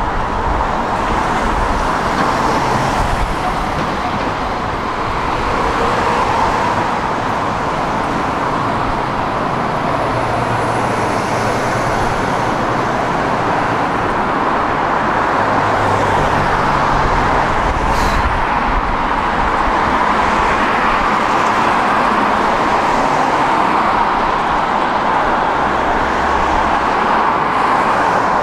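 Tram running along its rails: a steady rolling noise that swells and eases a little, with one short, sharp click about eighteen seconds in.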